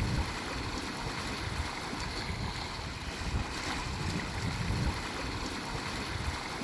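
Water rushing along the hulls of a catamaran sailing with its engine off, with wind buffeting the microphone in uneven gusts.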